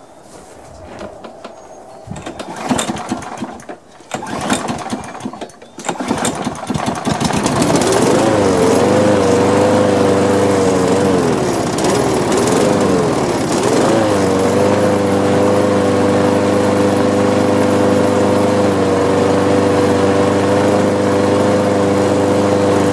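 Walk-behind rotary lawn mower's single-cylinder engine: after a few seconds of clatter it catches about seven seconds in, its speed swings up and down as it nearly dies, then it settles and runs steadily until it stops at the very end. The mower runs with vibration that the owner thinks comes from a slightly bent crankshaft.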